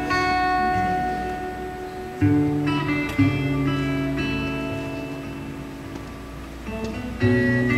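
Acoustic guitar played fingerstyle: a slow, gentle melody over plucked bass notes, with new chords struck about two seconds in, about a second later, and again near the end, each left ringing and slowly fading.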